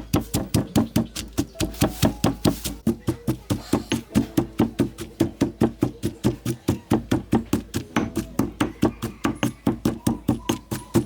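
Knife chopping rapidly on a wooden cutting board, steady even strokes at about five or six a second.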